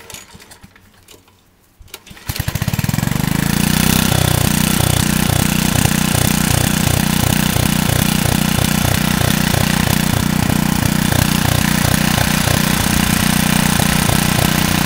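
Troy-Bilt Horse tiller's 8 hp Kohler Magnum single-cylinder engine, pull-started on propane through a conversion kit. It catches about two seconds in, picks up speed, and settles into a steady, even-beating run. This is its first start in about seven years.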